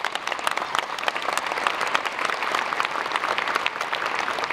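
A large audience applauding: many people clapping together, a dense, steady patter of claps.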